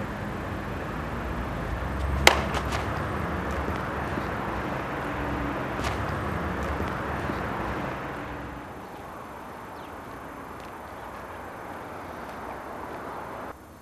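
Outdoor background noise with a low rumble and a sharp snap about two seconds in, then a fainter click. After about eight seconds the rumble drops away to a quieter, steady background.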